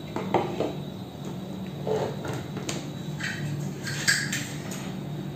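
A few light knocks and rustles of hollow plastic lamp parts being handled and set down on a wooden table, over a low steady hum.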